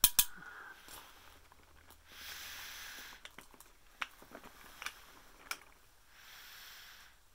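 Handling noise from a Boulder centerpin reel: a couple of sharp knocks at the start, a few scattered clicks, and two short stretches of rubbing, hissing noise about two and six seconds in.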